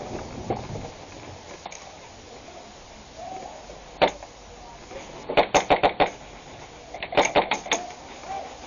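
Airsoft rifle firing at close range: a single shot about four seconds in, then two quick strings of about five or six shots each, a second apart.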